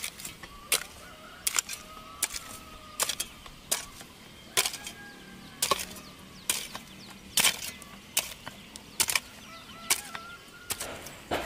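Hoe blade chopping into and scraping through dry, stony soil in a steady rhythm of strokes a little under a second apart. Faint bird calls sound between the strokes.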